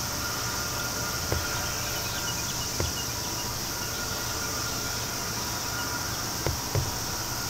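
Summer insects buzzing and shrilling steadily in the trackside vegetation, over a low, steady rumble, with a few short sharp knocks.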